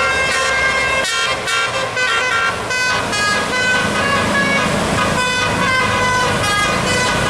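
Basuri-type telolet musical air horn on a bus, its roof-mounted trumpets playing a quick melody of short tooting notes that step from pitch to pitch.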